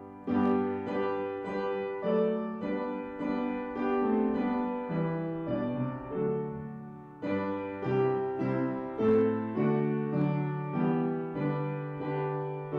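Piano playing a hymn tune in slow chords, each chord struck and left to fade, with a short break between phrases about seven seconds in.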